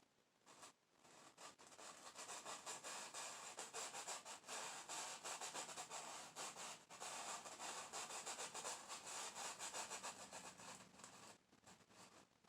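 Paintbrush bristles scrubbing quickly against canvas in fast, repeated scratchy strokes, applying white oil paint for waterfall splashes. The strokes start about a second and a half in and stop shortly before the end.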